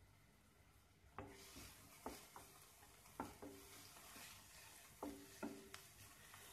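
Wooden spatula stirring chopped onions and green chillies in a non-stick kadhai, knocking and scraping against the pan about eight times from about a second in, each knock with a short ring from the pan. A faint sizzle of the onions frying in oil runs underneath.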